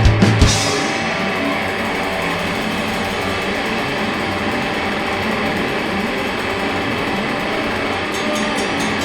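Live punk band: the drums land a last few hits about half a second in and stop, and distorted electric guitar goes on as a steady, dense noisy wash.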